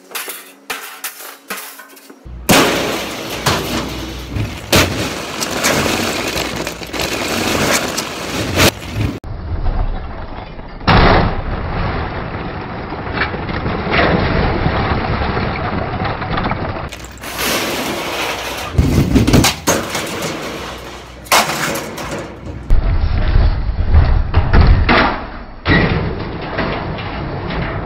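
Scrap iron and steel being thrown onto a scrap yard pile: a long run of metal clanks, bangs and crashes, with rumbling between them.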